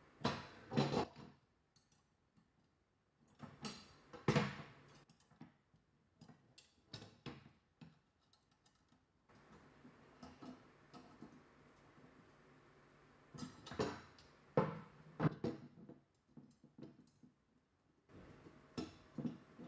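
Irregular small metal clicks and light knocks as screws are fitted and tightened into the steel-tube frame of a balance ball chair stand, the tubes and rings clinking as they are handled.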